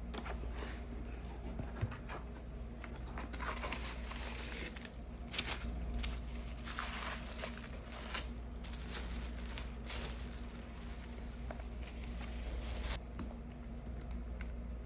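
Packaging of a vinyl LP being opened by hand: irregular crinkling and tearing rustles with scattered sharp clicks, over a steady low hum. The rustling stops a little before the end.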